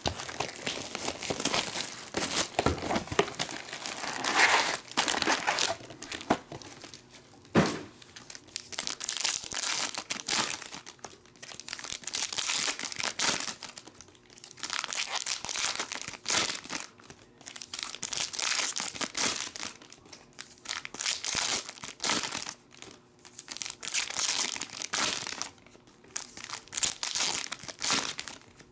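Foil trading-card pack wrappers crinkling and tearing as packs are ripped open and handled one after another, in rustling bursts every couple of seconds. A single sharp knock about seven and a half seconds in.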